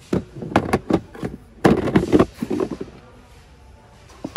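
Sharp clacks and knocks of a hard plastic Milwaukee Packout toolbox being handled. There are several quick knocks in the first second, a louder cluster about two seconds in, and one more near the end.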